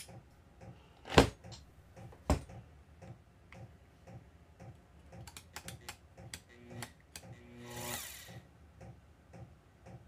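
A Vevor 5120 plunge router being handled while switched off: a string of light clicks from its controls being worked, with two louder knocks about a second and two seconds in and a short rubbing swell near the end.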